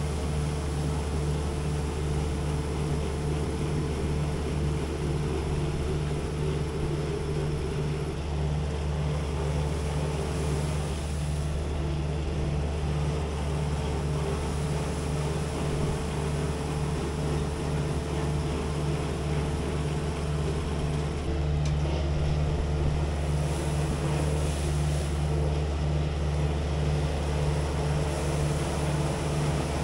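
Kubota skid steer's diesel engine running steadily under load, with a regular low pulse about twice a second, while its hydraulic silage facer shaves corn silage off the bunker face. The engine grows a little louder about 21 seconds in.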